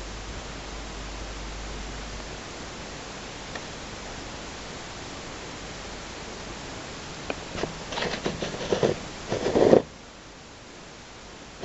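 Steady hiss from a camera's microphone left recording. About seven seconds in, a run of clicks, scrapes and rustles builds for two or three seconds, loudest just before it cuts off suddenly: handling noise from the camera being shifted to a new angle.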